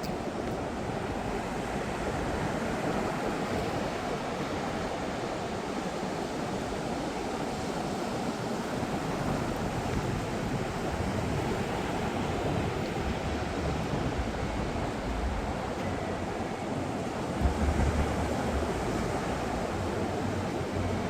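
Atlantic Ocean surf breaking and washing steadily on the beach. Wind buffets the microphone with low rumbles, strongest about 17 seconds in.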